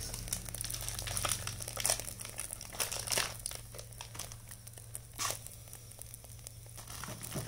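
Plastic food packaging crinkling as it is handled and opened, with louder rustles about three and five seconds in.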